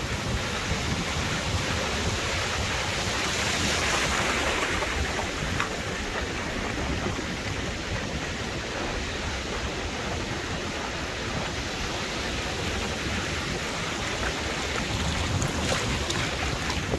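Steady rushing noise of ocean surf and wind, swelling a little a few seconds in.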